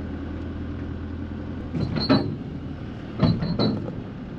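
Steady low engine hum, with two brief louder clunks, one about two seconds in and another about three and a half seconds in.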